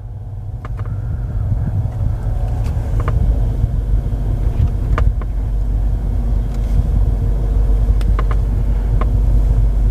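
Mercedes-Maybach S-Class sedan reversing out of a garage bay and past close by, a low engine rumble that grows steadily louder as it nears, with a few light ticks scattered through it.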